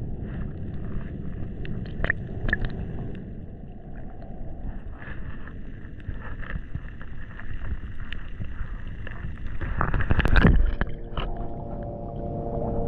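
Muffled low rumble of water heard through a submerged action camera in a shallow tide pool, with scattered small clicks and ticks. About ten seconds in comes a loud, brief splashing rush as the camera comes up out of the water.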